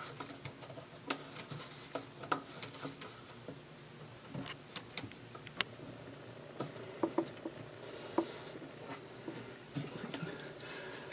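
Plastic drain nut being hand-tightened on a sink's pop-up drain body, pushing its rubber gasket up against the bottom of the sink: irregular light clicks of hands and threads on the plastic.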